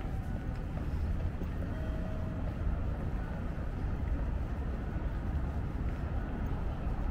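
City street traffic: a steady low rumble of passing vehicles.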